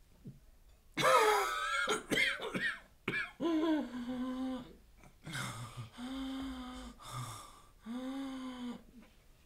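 A man whose lungs are ruined by chemical weapons coughs and groans in labored fits, several times over, his breath strained and wheezing.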